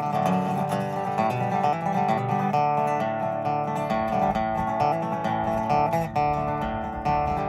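Instrumental break of a folk/Americana song: acoustic guitar strummed and picked, with other plucked strings, no singing.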